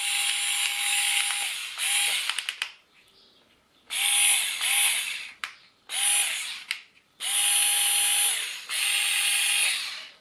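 Parkside PAS 4 A1 cordless screwdriver's motor and gearbox whirring in short runs, switched on and off about six times, each run dipping in pitch as it stops. A quick series of clicks comes around two seconds in.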